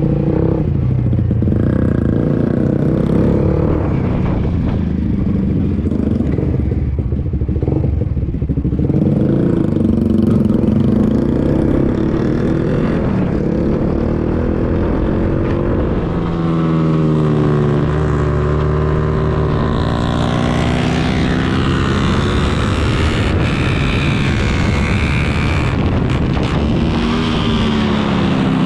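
Suzuki GSX-R150's single-cylinder engine heard from on board, running under load with its pitch rising through the revs about halfway through and again near the end. Wind noise grows as speed builds.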